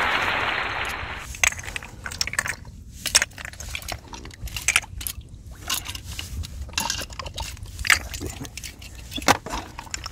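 Water gushing out over rocks for about the first second and a half, stopping abruptly. Then irregular clicks, clinks and scrapes of hard shells and stones being handled in shallow seawater.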